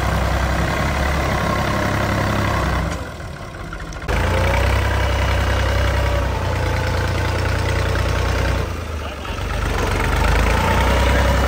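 Al-Ghazi tractor's diesel engine running steadily while the tractor works a rear scraper blade through a mound of earth. There are two short quieter spells, one about three seconds in and another about nine seconds in.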